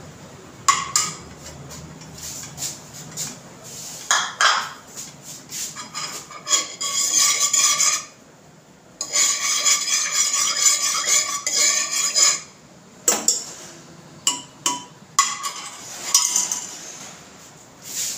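Steel spoon scraping and clinking against the inside of a pressure cooker, stirring melted ghee. Sharp clinks come throughout, with two longer stretches of ringing metallic scraping around the middle; the second stops suddenly about twelve seconds in.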